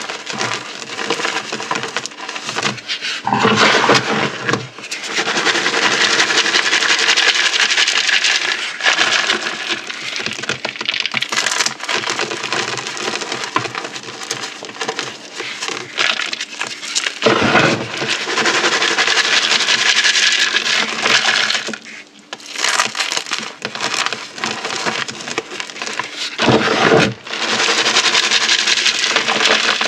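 Dried Orbeez water beads and chalk being crushed: a dense, continuous run of crunching and crackling, with louder crunches about four seconds in, again past halfway, and near the end.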